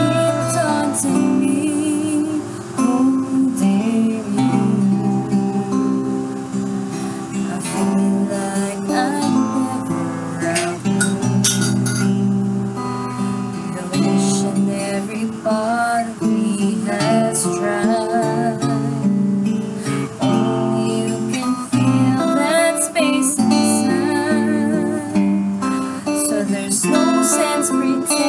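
A woman singing a slow song over a strummed acoustic guitar.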